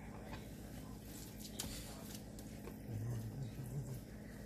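Faint rubbing and light taps of hands and a paper towel patting a whole sea perch dry on a wooden cutting board, over a steady low hum.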